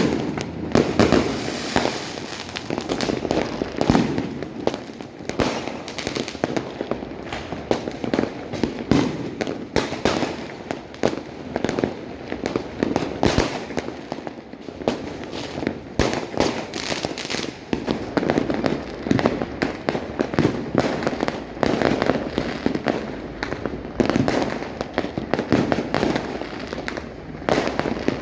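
Fireworks and firecrackers going off without pause: many overlapping bangs and pops at irregular, close intervals over a continuous crackle.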